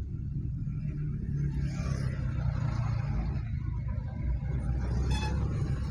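A car driving along a busy road: a steady low rumble of engine and tyre noise, with traffic noise swelling about one and a half seconds in. A brief high note sounds about five seconds in.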